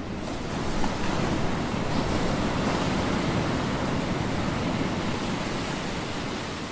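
Steady rushing water-like noise, like surf or a boat's wake. It swells in at the start and fades down near the end.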